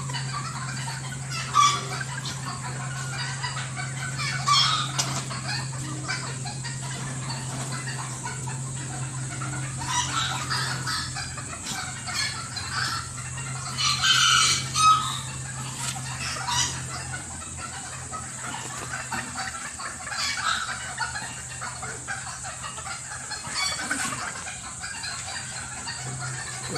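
Chickens clucking and calling in short bursts scattered throughout, with the loudest calls about halfway through. A steady low hum runs underneath for much of it and drops out near the end.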